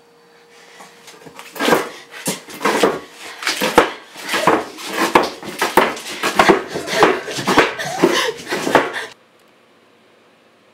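A chair rattling and knocking as a bound captive struggles against her restraints: rapid, irregular knocks and clatters, several a second, building quickly and stopping abruptly near the end.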